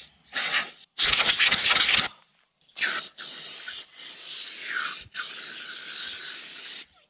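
Aerosol degreaser spraying with a steady hiss into a motorcycle's rear drum brake to clean the braking surface: a loud hiss lasting about a second, then a longer spray of about four seconds with a couple of brief breaks.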